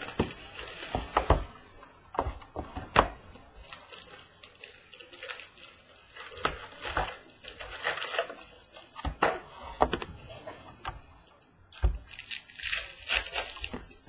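A box of Prizm Draft Picks baseball card packs being opened and handled: packs and cardboard rustling and clacking against the table in irregular bursts, with sharp clicks.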